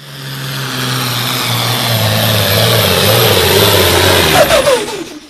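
Pro Farm pulling tractor's diesel engine running hard, loud and steady. About four and a half seconds in, a few short notes glide downward over the engine, and then the sound cuts off suddenly.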